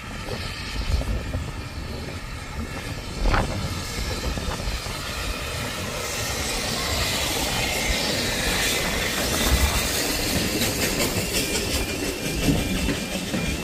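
Saddle-tank steam locomotive working past at close range, hauling a train of coaches, with a sharp knock about three seconds in. The sound swells as the engine draws level, then the coaches' wheels clatter over the rail joints as they roll by.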